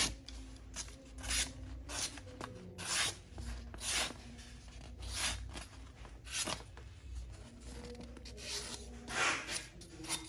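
Steel kitchen slicing knife slicing through sheets of paper: a string of short, dry rasping strokes, roughly one a second, the blade's sharpness being tested.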